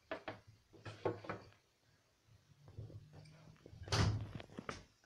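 Light knocks and clatter of a small wooden toy bridge against a bathtub as a hamster climbs over it: a few scattered knocks, then the loudest clunks about four seconds in.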